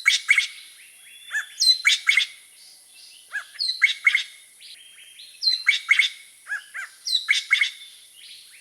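Greater racket-tailed drongo calling: a repeated phrase of a falling whistled note, quick clicky metallic notes and short arching notes, given about once every two seconds.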